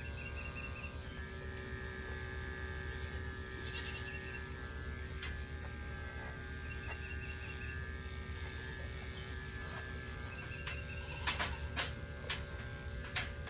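Corded electric animal clippers running with a steady hum while shearing a Nigerian dwarf goat's coat. A few sharp clicks come near the end.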